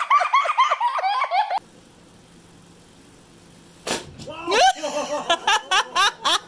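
A person laughing in quick repeated bursts that cut off suddenly about one and a half seconds in, then quiet room tone, a single thud about four seconds in, and more laughter near the end.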